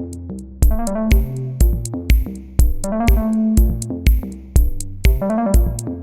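Electronic background music: a kick drum beating about twice a second under synthesizer and keyboard notes.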